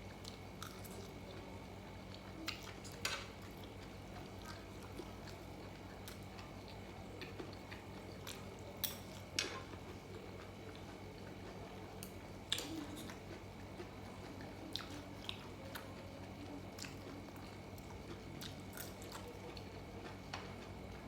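Close-up eating sounds of someone chewing, with scattered short sharp clicks, the loudest about nine and twelve and a half seconds in, over a steady low hum.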